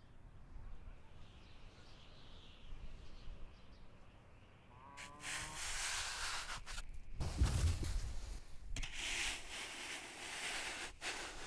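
A snow shovel scooping and scraping through powdery snow, a crunching hiss in several strokes with short breaks between them, starting about five seconds in. Before that there is only faint outdoor background.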